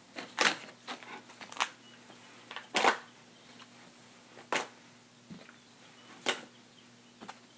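Hands working plastic Easter eggs into a woven basket packed with candy bags: about six separate sharp crinkles and clicks of plastic and packaging, a second or so apart, with quiet between.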